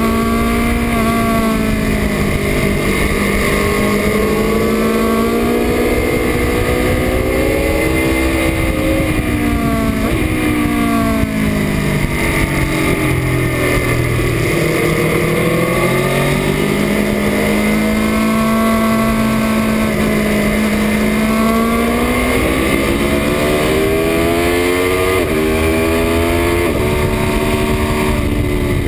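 2018 Aprilia Tuono V4 RR's V4 engine at speed around a circuit, its pitch climbing under acceleration and falling on braking and downshifts several times, lowest around the middle before pulling up again.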